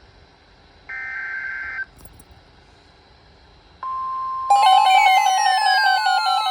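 Emergency Alert System signalling: a short burst of SAME header data, a warble between two high tones lasting about a second, then after a pause the steady 1050 Hz weather radio alert tone starts. About half a second later a louder warbling electronic alert sound with falling sweeps joins it.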